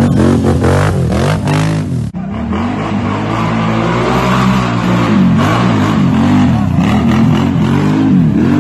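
ATV (quad bike) engines revving hard, the pitch rising and falling over and over. A sudden cut about two seconds in switches to another quad's engine, which goes on revving up and down in quick, repeated swells near the end.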